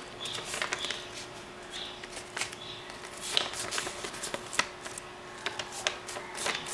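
A sheet of printed paper rustling and crinkling as it is folded and creased by hand, in a string of quick, sharp crackles.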